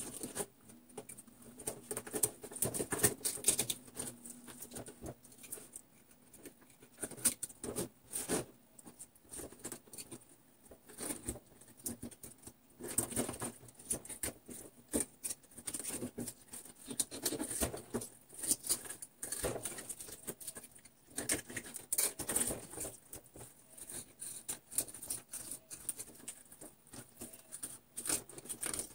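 Kitchen knife cutting and scraping a fish on a cutting board: irregular runs of scratchy scrapes and small clicks, stopping and starting.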